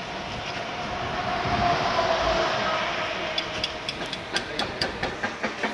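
Train passing on the railway line below. Its noise swells to a peak about two seconds in with a faint whine, then gives way to an even run of clicks, about four a second, from the wheels.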